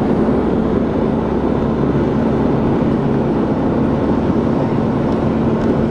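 Bus engine running with steady road noise, heard from inside the moving bus; a constant low hum throughout.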